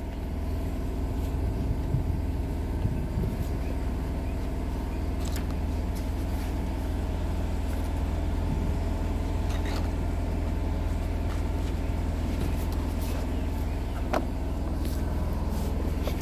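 Engine of a mobile welding rig running at a steady speed, with a few light clicks and knocks.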